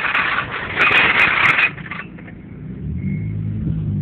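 Two bursts of rough scraping noise, the second with a few sharp clicks, then a low steady vehicle engine hum from about two and a half seconds in.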